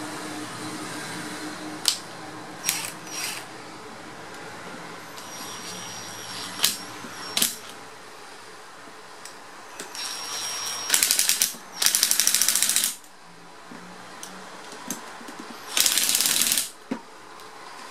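Ryobi cordless impact driver running in three short bursts of rapid hammering, driving screws into the end cover of an electric motor. Before the bursts come a few light clicks and knocks of the screws and motor being handled.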